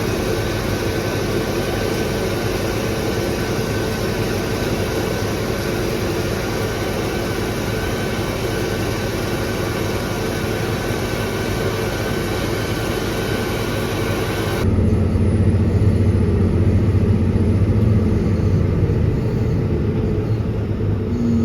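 Farm harvest machinery's engine running steadily with a continuous drone. About fifteen seconds in, the sound changes abruptly to a louder, deeper engine drone.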